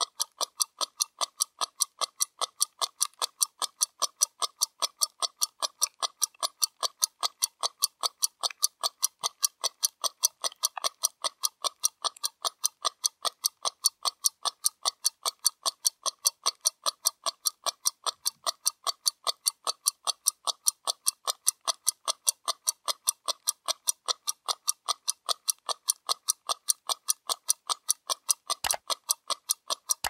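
Ticking of a 1936 Kirovka pocket watch movement made by the Second Moscow Watch Factory: its balance and escapement give a quick, perfectly even train of sharp metallic ticks.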